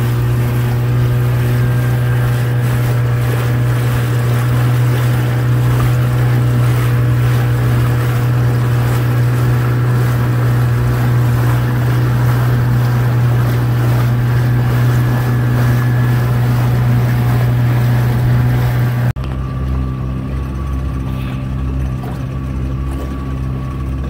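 Outboard motor running steadily as the boat cruises, with water and wind noise. About nineteen seconds in the sound drops suddenly to a quieter run of the motor.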